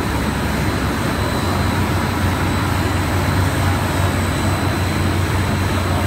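Biomass gasifier burner on a steam boiler running with its centrifugal blower fan: a steady, loud noise with a low hum and a faint high tone.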